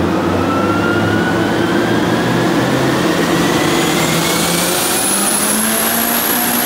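A car accelerating steadily, the engine note and a whine above it climbing in pitch over several seconds, with a faint high whistle rising with them.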